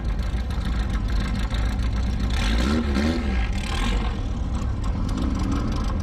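Lamborghini Huracán's 5.2-litre V10 running at low speed, a steady deep rumble.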